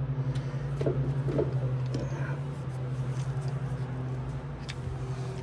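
A steady low hum, with a few faint clicks and small knocks.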